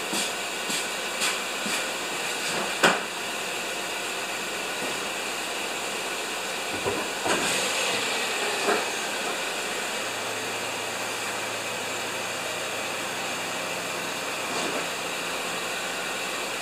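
Steady hiss throughout, with a few footsteps in the first seconds, car-door sounds around the middle, and a Kia Soul's engine running at a low idle from about ten seconds in as the car is moved up.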